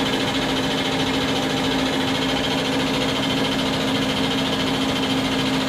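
Bosch diesel injection pump test bench running steadily, turning an in-line injection pump: a constant mechanical hum with a fast, even beat.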